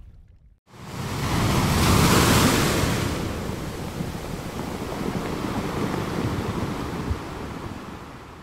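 Sea waves washing: a rush of surf swells up about a second in, then slowly dies away.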